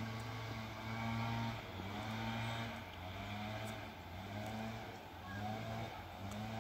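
ER2 electric multiple unit approaching, heard as a low hum that swells and dips about once a second, with faint rising whines in each swell.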